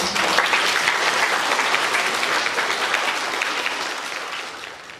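Applause from a hall full of seated schoolchildren and staff, many hands clapping at once; it starts suddenly and dies away near the end.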